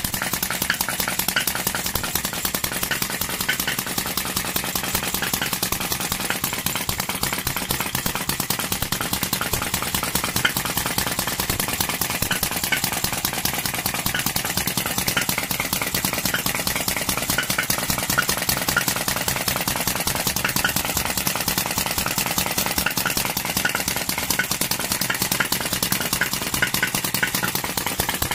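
A 2.2cc miniature four-stroke gasoline model engine running steadily, with a fast, even clatter.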